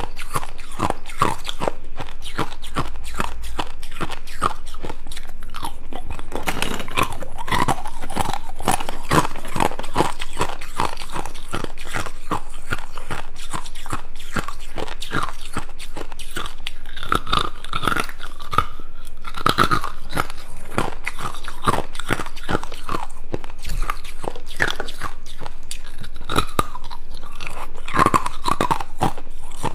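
Hard ice cubes being bitten and chewed close to a clip-on microphone: a dense, unbroken stream of sharp crunches and cracks.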